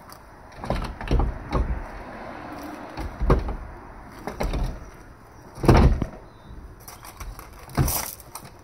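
Clunks and knocks from a Kia Sedona minivan's removable rear seat being lifted and shifted against the van's floor and body: about seven separate thumps, the loudest about six seconds in.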